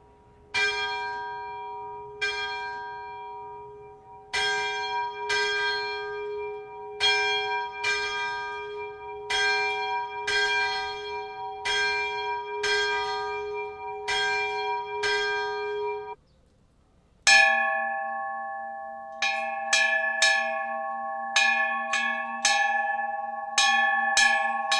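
A church bell tolling, about a dozen strokes roughly a second or so apart, each left to ring on. It stops about 16 seconds in, and after a short pause a differently pitched bell, the old school bell, is struck in quicker, uneven strokes.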